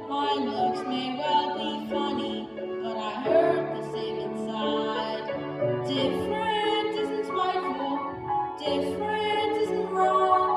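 A young singer sings a show tune over an instrumental backing, the voice holding notes for a second or two while the accompaniment's low notes change beneath it.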